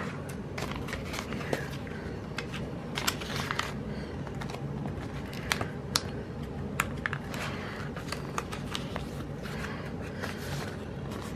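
Paper sticker sheets and planner pages handled as stickers are peeled and pressed down: light crinkling with scattered sharp clicks and taps, over a steady low hum.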